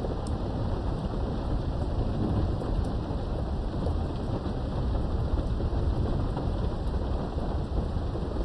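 Thunderstorm heard through a window: steady rain with a continuous low rumble of thunder, and a few light ticks of drops.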